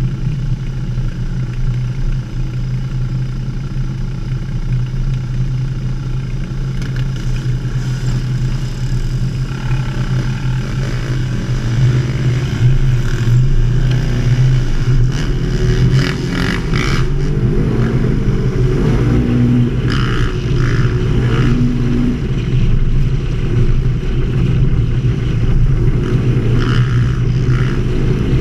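Off-road vehicle engine running steadily, with dirt-bike engines revving up and down close by from about halfway through, and some brief rattling.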